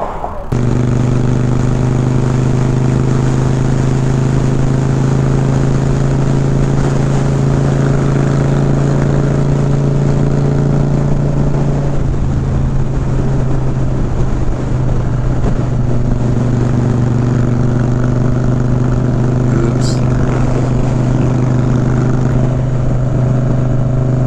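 Motorcycle engine running at a steady cruise, heard from the rider's seat with a constant rush of wind. It comes in abruptly about half a second in, and its note wavers for a few seconds around the middle before settling steady again.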